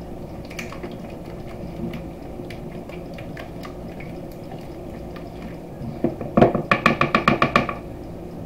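Silicone whisk beating a runny egg batter in a bowl: soft ticking and sloshing strokes, then, about six seconds in, a quick run of about ten clicks a second for a second and a half as the whisking speeds up.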